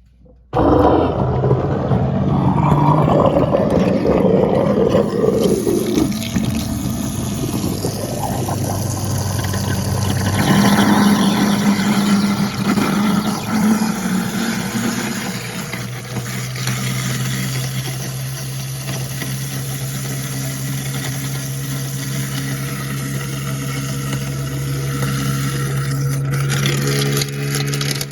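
American Standard 1 1/4 HP garbage disposal switched on about half a second in and grinding a chamber forcefully packed full of old food. It grinds roughly at first, then after about 15 s settles into a steadier motor hum as the food is cleared.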